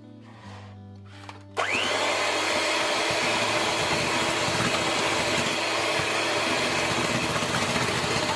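Electric hand mixer switched on about a second and a half in, its motor whining up to speed and then running steadily at high speed as it beats.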